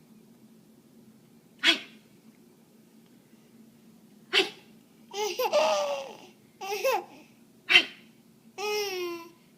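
A mother making short, sharp funny noises three times, with a baby giggling and squealing in reply between them.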